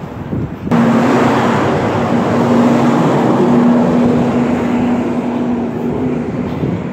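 Diesel tractor-trailer passing close by: loud engine and tyre noise that comes up suddenly about a second in, with a steady hum held under it.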